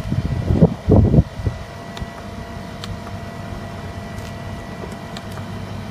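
Steady hum of the hydroponic fodder machine's air-conditioning and cooling unit running, with a couple of short muffled sounds about a second in and faint clicks as buttons on its control panel are pressed.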